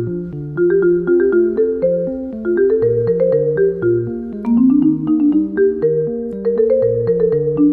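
Background music: a light, bouncy tune of quick short notes over a stepping bass line.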